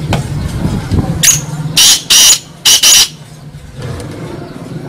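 Black francolin (kala teetar) calling: a loud run of five short notes over about two seconds, starting about a second in. There is a single note first, then two quick pairs.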